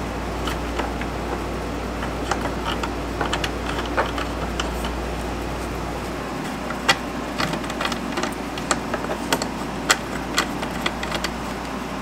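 Scattered small clicks and taps of plastic terminal connectors and cable lugs being handled and fitted on a power inverter, busier in the second half, over a steady low hum.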